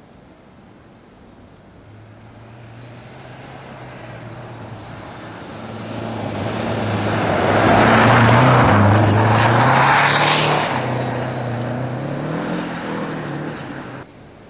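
Renault 5 GT Turbo rally car, with a turbocharged 1.4-litre four-cylinder, driven hard along the stage. Its engine grows louder as it approaches, is loudest as it passes about eight seconds in, then falls away and cuts off suddenly near the end.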